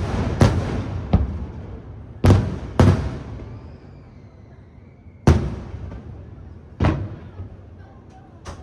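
Aerial firework shells bursting overhead: about eight sharp booms at uneven intervals, each trailing off in a rumbling echo, with a short lull in the middle.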